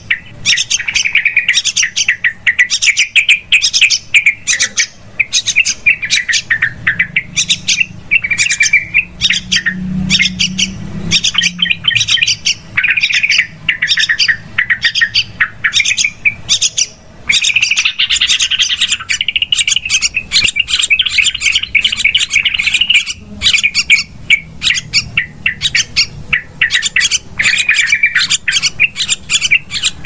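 Yellow-vented bulbuls calling in a noisy, unbroken run of rapid chattering notes: a bulbul lure call.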